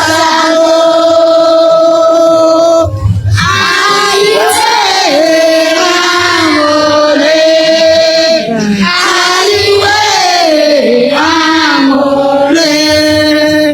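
A choir of mostly female voices singing a slow welcome song in long held notes, with short breaks between phrases.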